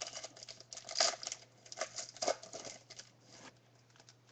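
Basketball trading cards being handled and flipped through, a quick run of crackly rustles and clicks that stops about three and a half seconds in.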